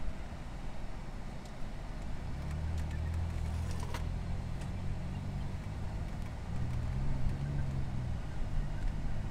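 Car driving, heard from inside the cabin: a steady low rumble of engine and tyres on the road. A low engine hum grows stronger about two and a half seconds in and shifts slightly in pitch later on.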